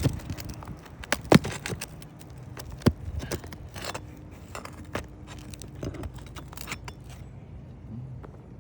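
Metal tool clinking and scraping against asphalt roof shingles and their nails as the old shingles are pried loose, with two sharp knocks about a second and a half apart early on among many light clicks.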